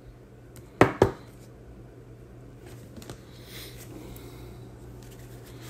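Trading cards being handled on a table: two sharp taps close together about a second in, then faint rustling, over a low steady hum.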